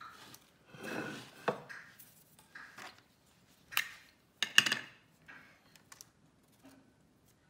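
Parchment paper rustling and light knocks on a wooden board as the dough and a scoring tool are handled. Among them are a few sharp clicks, the loudest about four and a half seconds in.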